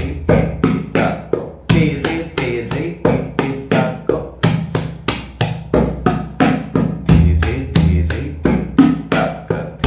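Tabla pair (dayan and bayan) played with both hands in a Rupak taal rela built on the dhere dhere kete tak phrase, a steady run of about four to five strokes a second. Deep bass strokes on the bayan ring out at intervals.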